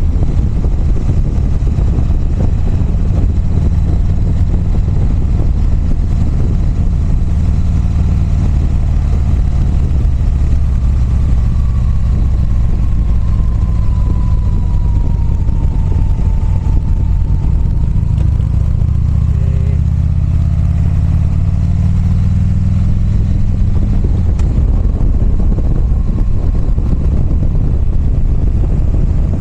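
Motorcycle engine running steadily while riding, under a constant rushing noise.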